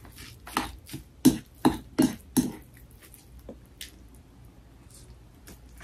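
Metal spoon scraping and clinking against a ceramic bowl while bibimbap is mixed: about six sharp strokes in the first two and a half seconds, then only a few faint ticks.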